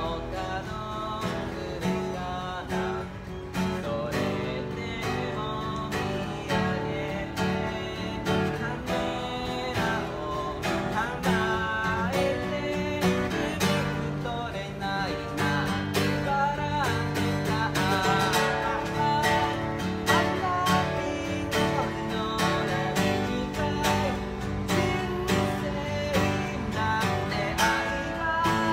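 A man singing while strumming an acoustic guitar, with a steady strummed rhythm under the sung melody.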